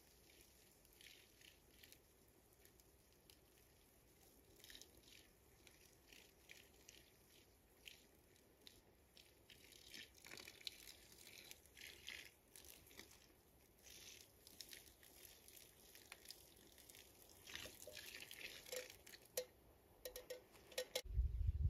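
Faint scattered light clicks and rustles, small handling noises that come more often in the last few seconds. A low rumble comes in just before the end.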